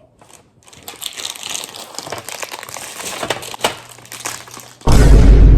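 Plastic packaging crinkling and rustling as it is handled, with irregular crackles. About five seconds in, a much louder burst of noise lasting about a second cuts across it.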